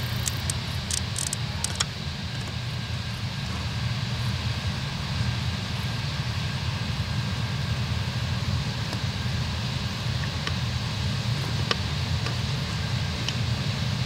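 Claas Lexion 7400 combine harvester running steadily while harvesting barley: a continuous low engine drone with an even mechanical hiss over it.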